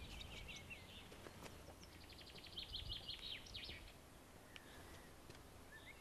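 Faint wild birdsong: a few short chirps, then a quick trill of rapidly repeated notes about two to four seconds in, over a low steady rumble.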